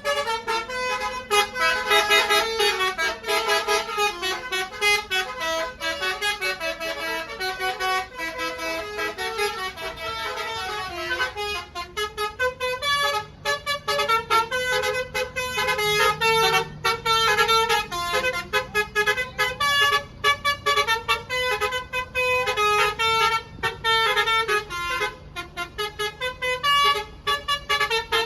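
Basuri telolet bus horn playing a fast melody of short notes that step from pitch to pitch several times a second, with a low steady hum beneath.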